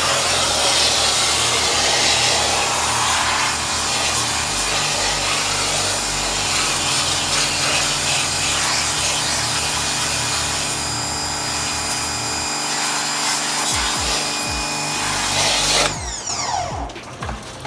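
AR Blue Clean 1750 psi electric pressure washer running, its motor and pump humming steadily under a loud hiss. About 16 seconds in it cuts off suddenly and the motor spins down with a falling whine.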